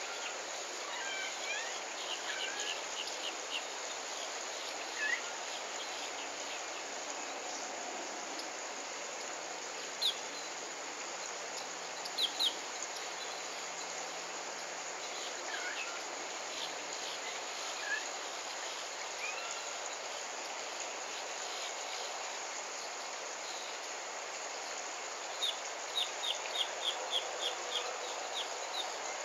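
A steady outdoor chorus of insects with birds calling over it in short chirps and slurred notes, ending in a quick run of about eight chirps.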